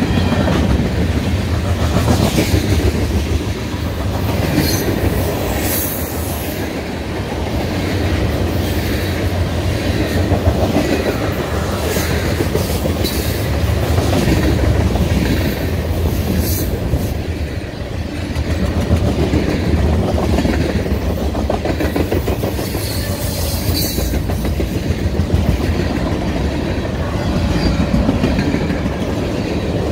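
Freight cars (steel coil cars and tank cars) rolling past close by with a steady rumble. The wheels clatter again and again over the rail joints.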